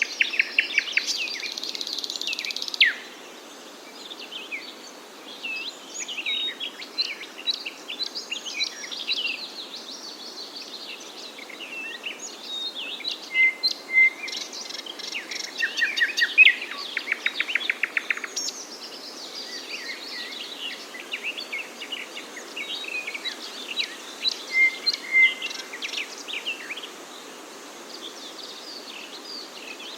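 Several songbirds chirping and singing at once, a busy mix of short chirps, whistles and trills over a faint steady hiss. A dense, louder burst of song in the first few seconds cuts off abruptly, and a fast rattling trill comes a little past halfway.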